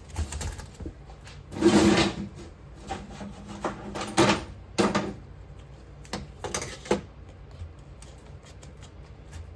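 A sand-casting flask being clamped shut: a series of short scrapes, rubs and knocks from the flask and clamps being handled, the loudest about two seconds in.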